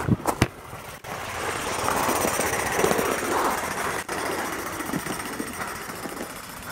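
Gauge 1 live steam tank locomotive running on garden railway track with a steady hiss and rush of steam. It is loudest as it passes close and fades as it pulls away. A few sharp knocks sound right at the start.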